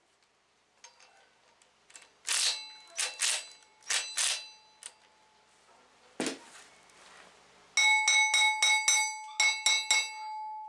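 Hammer blows on a steel flywheel to knock it loose from the crankshaft of a Hummer H3 3.5 L five-cylinder engine. Each hit makes the flywheel ring like a bell. A few scattered strikes and one duller thump are followed near the end by a fast run of about eight ringing hits.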